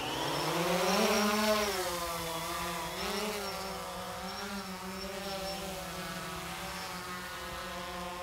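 DJI Phantom quadcopter's four propellers spinning up for takeoff: a buzzing whine rising in pitch and loudest as it lifts off, wavering in pitch as it climbs, then settling into a steady hover.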